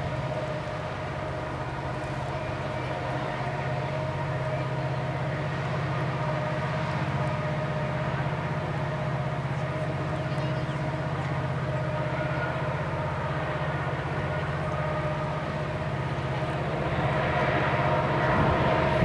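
EMD SD70ACC and SD70ACe diesel-electric locomotives pulling hard up the grade: a steady engine drone with several held tones, growing louder near the end as the head end draws nearer.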